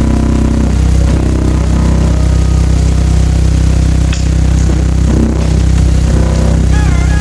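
Subwoofer in its box playing a loud, steady low test tone of about 32 Hz, with the enclosure buzzing and rattling along as its panels flex at low frequencies.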